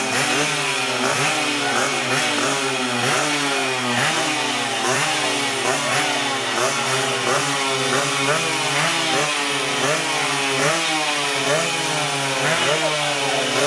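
Several small motorcycle engines revved over and over together, their pitch climbing and falling back in quick, overlapping blips with a buzzy, saw-like tone.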